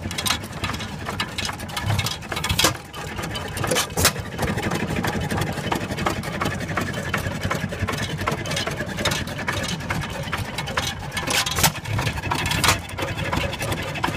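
Antique Bates & Edmonds horizontal stationary gas engine running, with a steady mechanical clatter and a few loud sharp cracks, about three and four seconds in and twice near the end.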